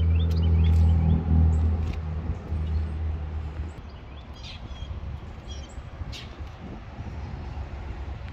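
A vehicle engine's low, steady hum that fades away about four seconds in, with small birds chirping throughout.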